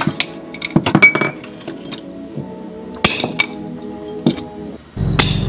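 Sharp metallic clinks and taps of hand tools, a pipe and a large adjustable wrench, striking and scraping on a motorcycle's aluminium cylinder head while its valve springs are removed, over background music. A steady low rumble starts near the end.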